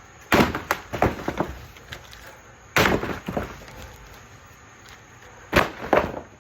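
Sharp cracks and knocks in three quick bunches, about two and a half seconds apart, from packaging being pulled and handled while a large tool cabinet is unboxed.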